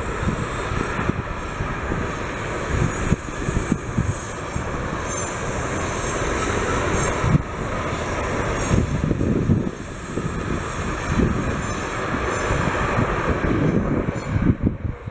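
Freight train of covered wagons rolling past on jointed track, wheels and running gear rumbling, with intermittent high-pitched wheel squeal. The train noise thins out near the end as the last wagon goes by, and wind buffets the microphone throughout.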